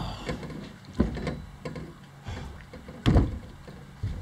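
Heavy thumps and lighter knocks on a small boat's deck and hull as it is handled and moved about on, with two low thumps about one and three seconds in.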